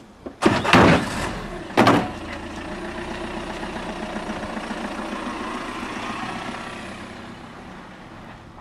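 A car pulling away and driving off: two loud bursts in the first two seconds, then the engine running steadily and fading away over the last couple of seconds.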